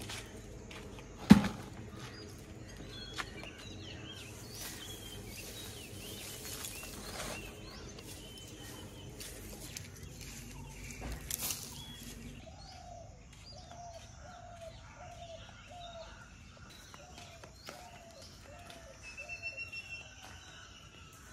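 Birds chirping and calling, including a run of about ten short repeated notes from the middle onward. A sharp knock about a second in is the loudest sound.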